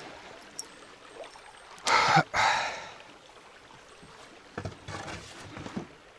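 River water rushing past a small rowing boat, with a loud splash about two seconds in and softer knocks and splashes near the end.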